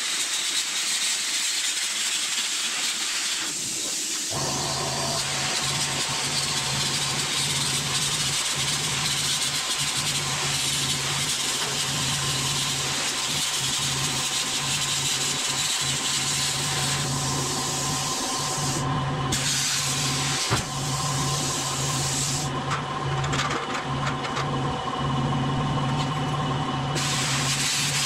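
Angle grinder cutting through the corrugated steel wall of a shipping container. A steady hiss of the disc in the metal runs over the motor's even hum, which sets in about four seconds in.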